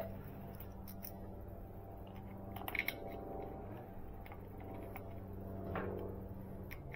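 Faint handling sounds of hand tools and parts as the oil filter cap is fitted back onto a motorcycle engine case: a few small metallic clicks about three seconds in and a light knock near the end, over a steady low hum.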